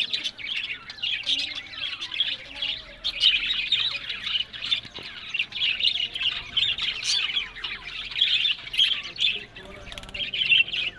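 Budgerigars chattering, a dense run of short chirps and squawks with little pause.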